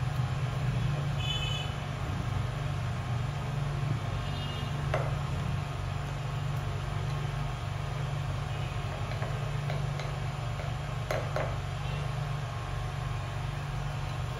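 Steady low background hum, with a few faint scrapes and taps as a table knife saws through crisp pan-fried French toast on a plate, around five seconds in and again near eleven seconds.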